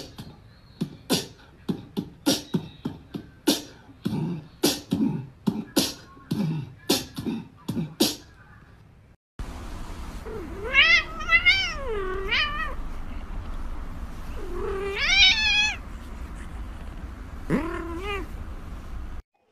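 A run of sharp knocks, about two a second, for the first half. Then a grey cat meowing in three drawn-out, wavering calls while it is rubbed, the last one short, over a low steady hum.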